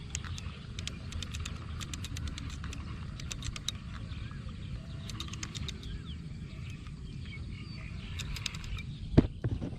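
Outdoor field ambience: birds chirping and runs of quick ticking calls over a steady low rumble, with one sharp knock about nine seconds in.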